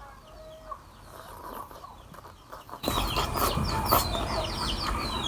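Chickens clucking and chicks peeping: many short, high, falling chirps. About three seconds in they grow louder, over a sudden rise of rough rustling noise.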